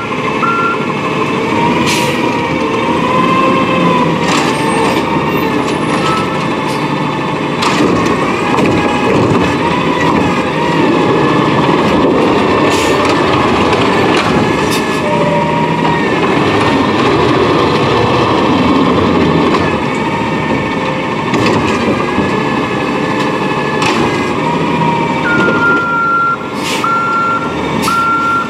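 Natural-gas Peterbilt 320 side-loader garbage truck running steadily under load, with a few sharp clanks. Its backup alarm beeps briefly near the start, stops, then sounds again in the last few seconds as the truck reverses.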